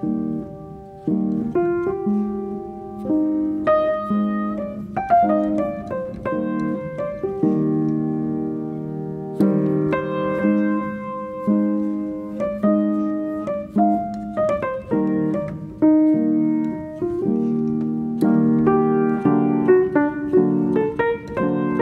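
Background piano music: a gentle melody with sustained chords, the notes struck at an even, unhurried pace.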